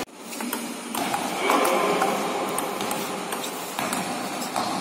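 Table tennis rally: a celluloid ping-pong ball clicking off the paddles and the table in quick, irregular strokes, over the steady noise of a sports hall.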